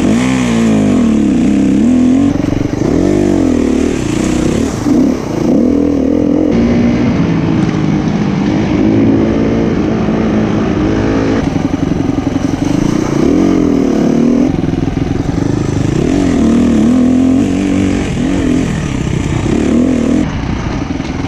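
SWM 300RS enduro motorcycle engine being ridden off-road, revving up and down over and over as the throttle is opened and closed.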